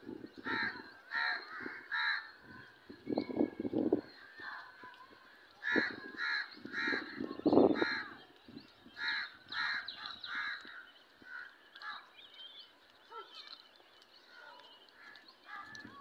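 Birds calling in runs of short repeated calls, several a second, through the whole stretch. Louder low muffled bursts of noise come about three seconds in and again at about seven and a half seconds.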